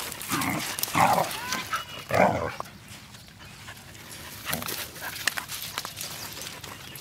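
Dogs at play: three short dog vocalisations in the first two and a half seconds, a weaker one about four and a half seconds in, with scattered light clicks.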